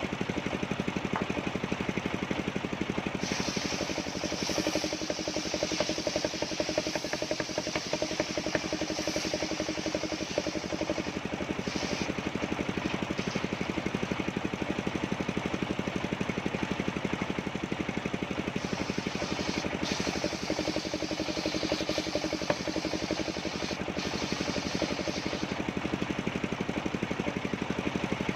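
Engine of a mobile circular sawmill running steadily while its blade cuts coconut-palm wood. A higher hiss joins the engine from a few seconds in to about twelve seconds, and again from about eighteen to twenty-five seconds.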